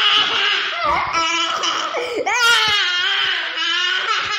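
A cartoon character's high-pitched voice wailing in long, drawn-out cries, like exaggerated crying, with short breaks about one and two seconds in.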